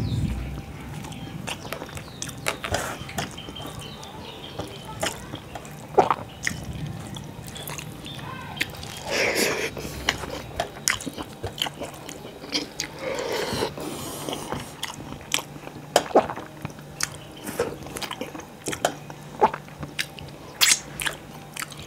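Close-miked eating sounds: a man chewing rice and fish curry, with many sharp wet mouth clicks and smacks, and fingers squishing and mixing rice on his plate.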